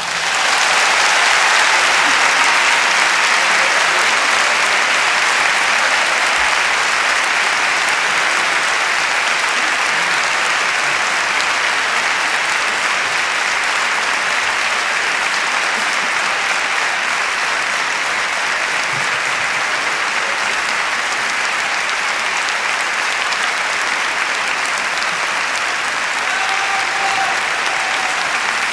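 Audience applauding: a long, steady round of clapping that eases only slightly toward the end.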